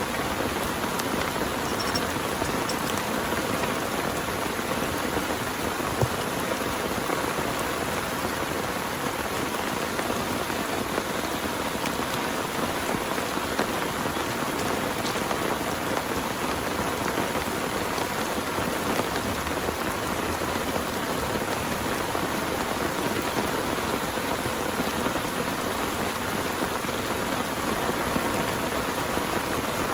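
Heavy rain falling steadily: a dense, even hiss of rain with a few louder single drops standing out.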